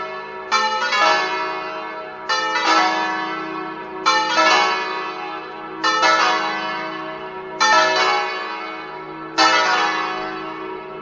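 Full peal (plenum) of five bronze church bells tuned E3, F#3, G#3, A3 and B3, recast by D. Colbachini of Padua in 1948, ringing together. Clusters of strikes come about every second and three quarters, each ringing on and fading before the next.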